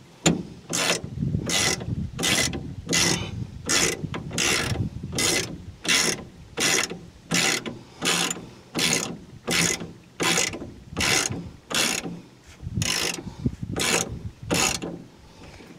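Hand socket ratchet worked back and forth in steady strokes, about one and a half a second, each stroke a short run of ratchet clicks, turning a fastener on the truck's rear suspension. The strokes stop just before the end.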